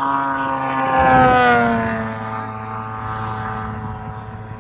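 Radio-controlled aerobatic model airplane's engine and propeller running hard. It is loudest about a second in, then its pitch drops as the plane passes, and it runs on steadily at the lower pitch.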